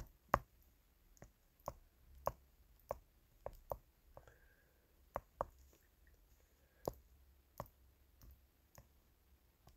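Stylus tip tapping and clicking on a phone's glass touchscreen while writing by hand: a dozen or so short, sharp, faint taps at irregular intervals.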